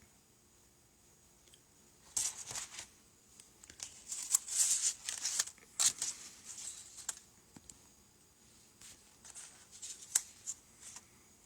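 Crinkling and rustling as thin kit parts and their packaging are handled, in irregular bursts from about two seconds in to seven seconds, then again briefly near the end.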